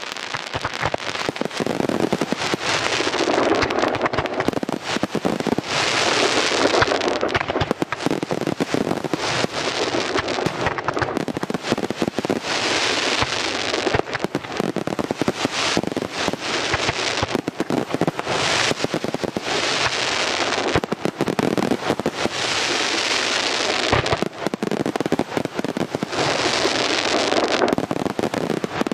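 Aerial fireworks display: a dense, unbroken barrage of shell bursts and crackling stars, surging and easing every second or two without a pause.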